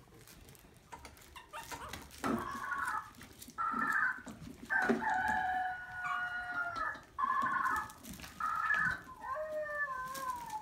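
Maltese puppies whining and howling: a series of high-pitched, wavering cries, each about one to two seconds long, the last one falling in pitch.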